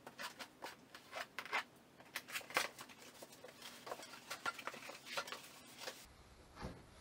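A cardboard box being opened and slid up off a boxed heater, with its plastic packaging crinkling: a quick, irregular run of sharp rustles, scrapes and taps that stops about six seconds in.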